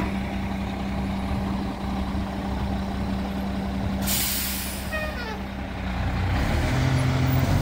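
Recycling collection truck idling with a steady low hum. About four seconds in, a short loud hiss of its air brakes. Near the end the engine note changes and rises.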